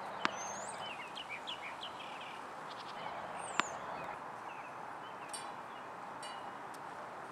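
Two sharp knocks of a tennis ball, one just after the start and one about three and a half seconds in, over steady outdoor background noise. Birds chirp faintly in between.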